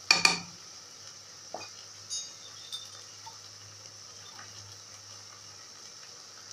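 Kitchen utensils clinking: one sharp clink just after the start, then a few lighter clinks. Under them runs a faint steady sizzle from the bulgur and tomato mixture cooking in the pot.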